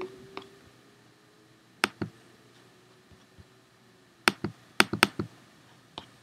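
Computer mouse clicking about eight times, singly and in quick pairs and runs of three, to close one image and open the next.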